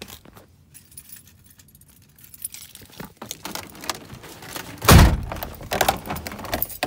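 Keys jangling with clicks and rattles of handling inside a pickup cab, and one heavy thump about five seconds in.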